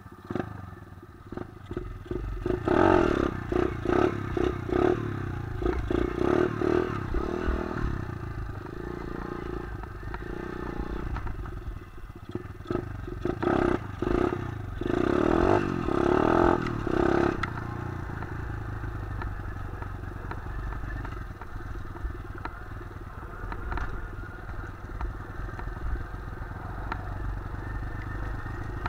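125 cc pit bike's single-cylinder engine being ridden on dirt: it revs in short, choppy bursts about two seconds in and again around thirteen seconds in. After that it runs more evenly at lower revs to the end.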